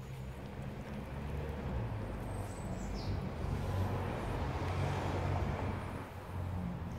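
Low rumble with rustling handling noise as the phone is moved, and one short high falling chirp about two and a half seconds in.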